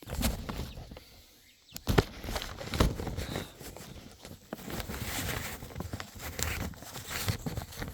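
Handling noise from a camera being set down and propped up: a sharp knock about two seconds in, another about a second later, then steady rustling and scraping with scattered clicks, mixed with footsteps.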